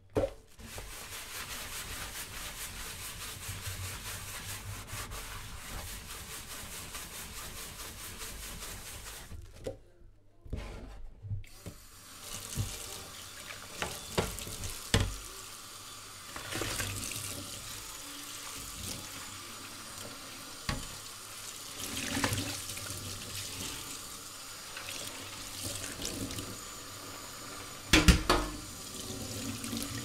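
Washing an oven dish in a stainless steel sink: tap water running and sloshing through soapy water while the dish is scrubbed and rinsed. Sharp knocks come now and then as the dish bumps the sink, the loudest about two seconds before the end.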